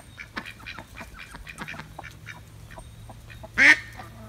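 Barnyard poultry calling: a scatter of short, soft calls, then one loud, harsh call about three and a half seconds in.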